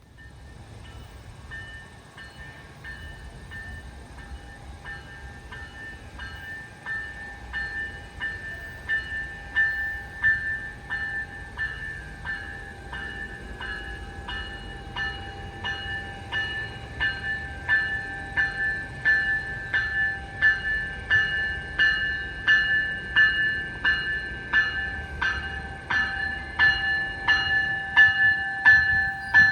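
An approaching GO Transit commuter train, growing steadily louder, with a steady ringing tone and an even rhythmic clanging of about one and a half to two strokes a second over a low rumble.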